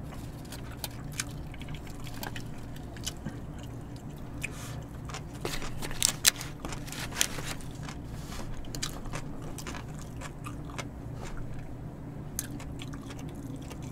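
People chewing and biting into a bossam set of boiled pork and leafy wraps, with crisp crunches and wet mouth clicks. The loudest crunches come about six seconds in, over a steady low hum.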